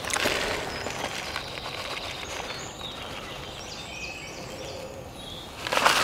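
Rustle of a plastic bag as bird food is tipped onto a log feeder, with short high bird chirps in the background. A brief loud rustle or crunch comes just before the end.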